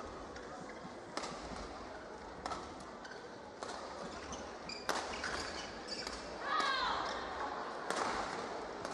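Badminton rally: rackets striking the shuttlecock in sharp cracks about once a second, over the steady murmur of an arena crowd, with a brief squeak about two-thirds of the way through.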